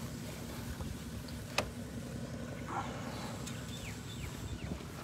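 Steady low rumble with one sharp click about one and a half seconds in.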